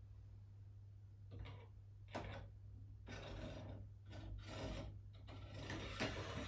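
Five or six rubbing strokes, each about half a second, as the parts of an air rifle are worked by hand during reassembly, over a low steady hum.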